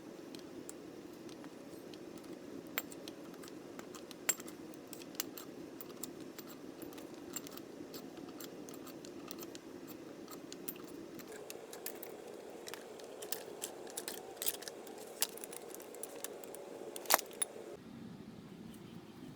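Metal tools and bench-vise parts clinking and tapping as the vise is taken apart: scattered sharp metallic clicks, busier in the second half, with one loudest clink near the end, over a steady low hum.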